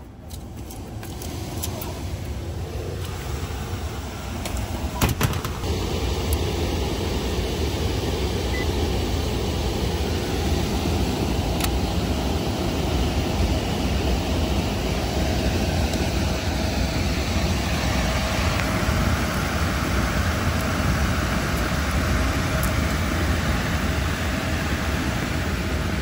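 Air handler blower starting up and then running steadily: a whooshing noise that builds up over the first few seconds and holds, with a low hum and a few light clicks.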